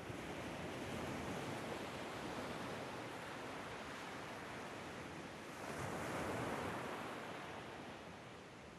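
Soft rushing noise like surf washing in, swelling about a second in and again around six seconds, then ebbing.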